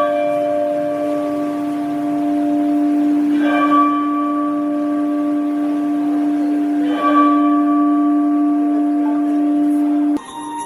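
Electronic church bell tolling: three strokes about three and a half seconds apart, each ringing on in a steady hum. The ringing cuts off abruptly near the end.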